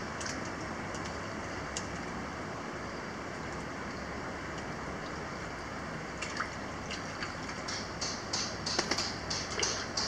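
Steady trickle and wash of hot-spring water running into a rock-lined open-air bath. From about six seconds in, a run of short sharp taps comes in, growing more frequent toward the end.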